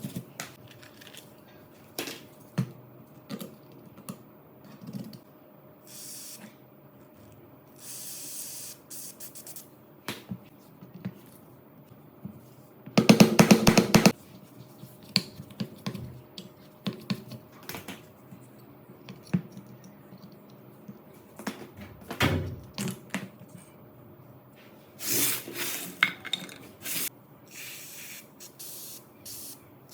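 Several short hissing sprays, each about a second long, the loudest about halfway through. Between them come scattered clicks and knocks of metal parts being handled on a rusty rifle.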